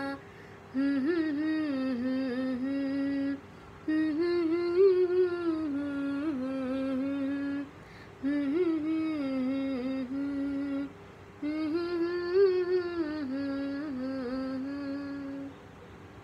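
A woman hums the melody of a Marathi lullaby without words, in four long phrases with short breaks between them. The humming stops near the end.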